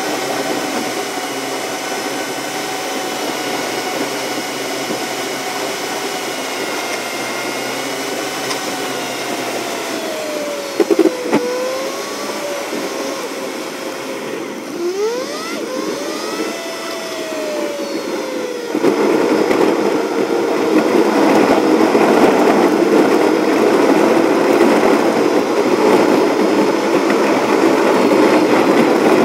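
Car engine and road noise heard inside the cabin, sped up so it has a high whine. In the middle the engine's pitch dips and rises again as the car slows for a junction and pulls away, with a couple of brief clicks. About two-thirds through it turns into a louder, rougher tyre rumble as the car runs onto a gravel road.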